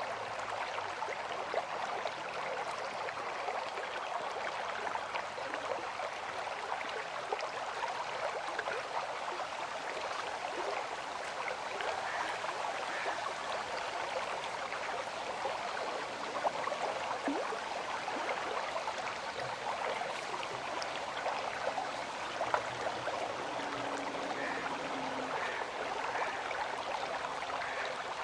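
River water flowing steadily: an even, unbroken rush with many small splashes.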